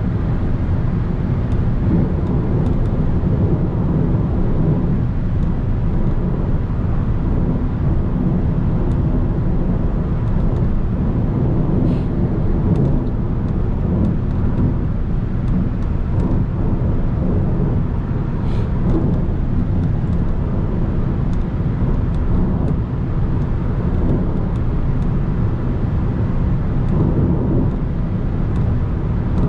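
Audi A3 driving at steady highway speed, heard from inside the car: a constant low rumble of tyres on rough asphalt, engine and wind.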